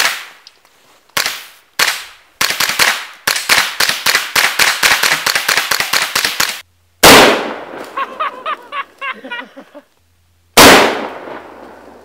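Suppressed .22 Ruger 10/22 rifle fired semi-automatically: two single shots, then a fast string of sharp reports at several a second for about four seconds. After that come two much louder rifle shots about three and a half seconds apart, each with a long echoing decay, from a Mosin-Nagant fired at a squash.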